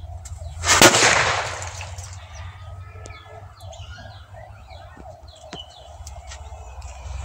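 Homemade matchstick cracker going off with a single loud bang about a second in, followed by about a second of fading hiss. Faint bird chirps follow.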